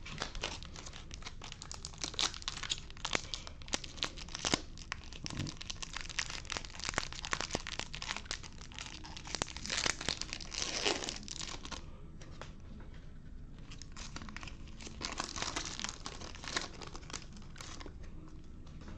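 Foil wrapper of a 2020 Topps Chrome baseball card pack crinkling and tearing as gloved hands open it, in irregular bursts of crackling that die down about two-thirds through and pick up again briefly.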